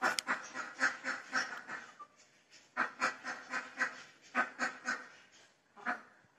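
A flock of domestic ducks quacking, many short calls in quick runs: a dense run at the start, a brief pause, another run from about three seconds in, and a single call near the end.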